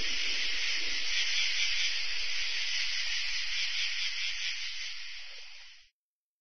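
A steady high hiss that fades away and cuts off to silence about six seconds in.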